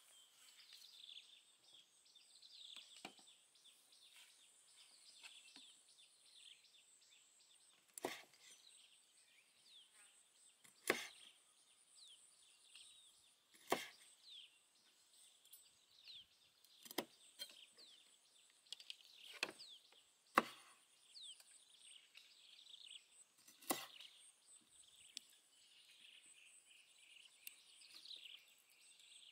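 Cleaver chopping through a duck's feet on a wooden cutting board: a sharp knock every few seconds, about eight in all. Birds chirp throughout, over a steady high whine.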